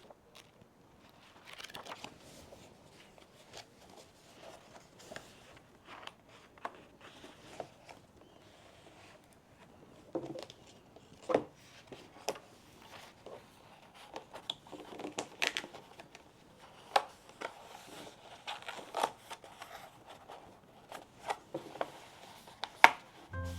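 Handling sounds of a plastic jigsaw-puzzle journal cover and notebook being fitted together: scattered clicks and taps with light scraping and rustling in between, the sharpest tap about eleven seconds in.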